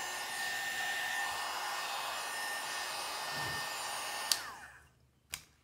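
Small 300 W electric hot air gun running, a steady rush of air with a thin fan whine. A little past four seconds in it is switched off with a click, and the fan winds down with a falling whine. A second click comes near the end.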